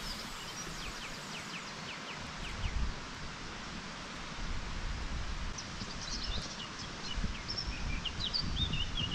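Small birds chirping over a steady outdoor hiss, with gusts of wind buffeting the microphone. A quick run of falling notes comes about two seconds in, and more varied chirps follow in the second half.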